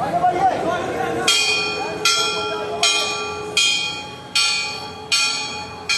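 Temple bell struck over and over from about a second in, roughly once every three-quarters of a second, each stroke ringing out and fading before the next. A crowd's voices murmur underneath.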